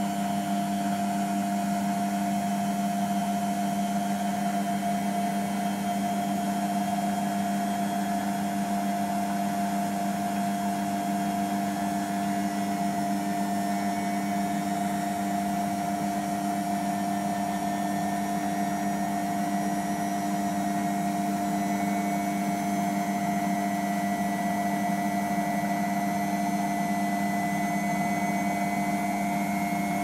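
Beko WMP511 washing machine running in its third rinse-and-spin stage, its motor giving a steady, unbroken whine at constant pitch. A faint higher whine joins in about twenty seconds in.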